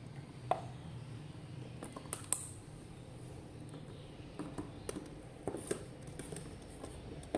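Scattered small clicks and light knocks of hands working rechargeable emergency LED bulbs hanging in a row, switching them on one at a time, over a faint steady low hum.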